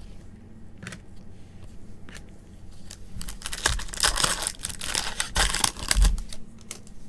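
Foil wrapper of a Panini Optic baseball hobby pack being crinkled and torn open by gloved hands. The dense crackle runs from about three seconds in until shortly before the end, after a couple of light clicks.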